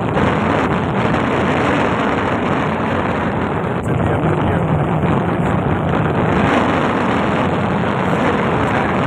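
Boat under way on a lake: its motor runs steadily under a constant rush of wind on the microphone.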